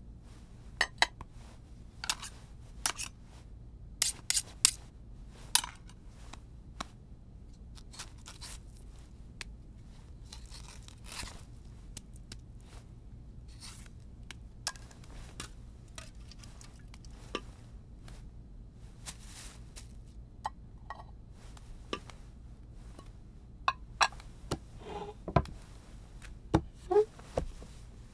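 A banana being peeled and cut with a knife: scattered sharp snaps and short tearing sounds of the peel, with knife clicks against a plate. A few heavier knocks come near the end.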